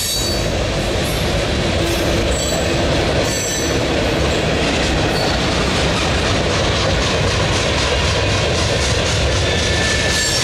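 Freight cars of a mixed manifest train rolling past at steady speed across a bridge: a loud, steady rumble of steel wheels on rail with clickety-clack at the joints. A few brief, high wheel squeals come in the first half.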